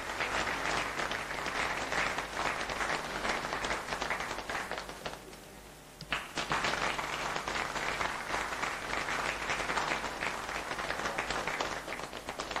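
Audience applauding with sustained clapping, which dies down about five seconds in and starts again strongly about a second later.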